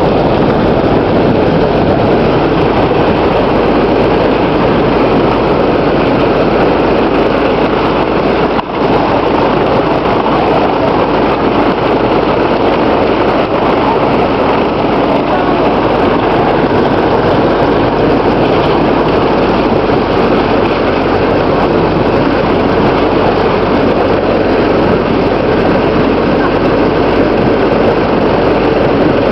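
Ford Model T snowmobile's four-cylinder engine running steadily under a loud, even rush of mechanical noise.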